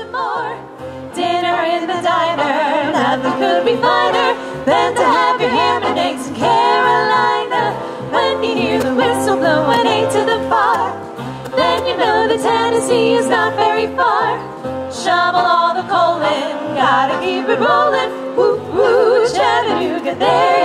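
Female vocal trio singing in harmony into microphones, amplified through a PA, over a musical accompaniment with a stepping bass line.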